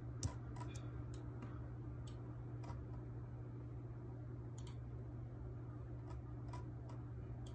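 Scattered, irregularly spaced computer mouse clicks over a steady low electrical hum.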